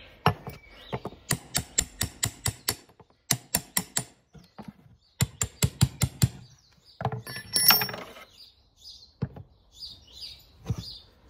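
Farrier's hammer tapping a steel punch against a horse's hoof in quick runs of sharp metallic taps, working out the snapped-off horseshoe nails left in the hoof wall. About seven seconds in comes a denser, ringing metallic patch, then a few separate knocks.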